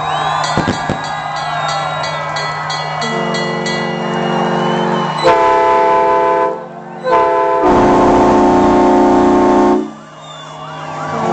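Tugboat horns sounding together in long held notes of several pitches. A low horn holds from the start, others join about three seconds in, and the loudest blasts come about halfway through, a short one and then a long one of about two seconds that stops suddenly.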